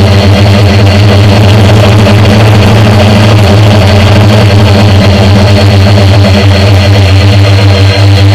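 Homemade quadcopter's electric motors and propellers droning steadily at a fixed pitch, very loud and close, as picked up by the action camera mounted on the drone.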